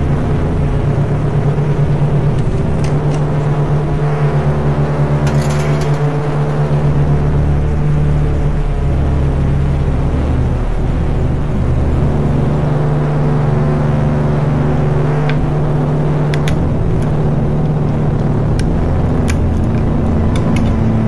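Ambient drone music from an experimental cassette EP. Low notes are held steadily for several seconds at a time, with a few faint clicks.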